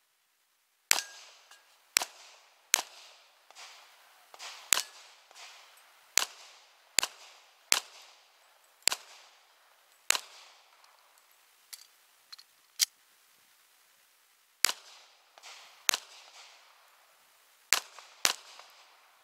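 Semi-automatic pistol fired in a timed competition string: over a dozen sharp shots at an irregular pace, several in quick pairs under a second apart, with a few fainter pops and a pause of nearly two seconds late in the string.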